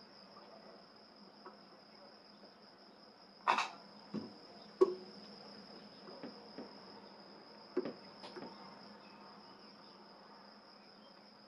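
Homemade microwave-transformer spot welder joining nickel strip to 18650 lithium cells: about five sharp snaps, the loudest about three and a half seconds in. A steady high-pitched whine and a low hum run underneath.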